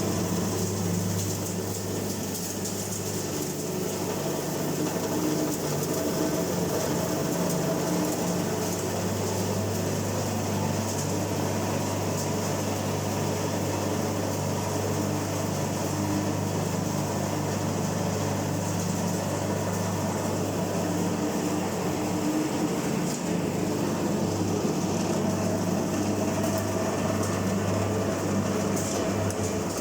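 Hookah tobacco chopping machine running steadily, with a constant low hum and a steady high hiss.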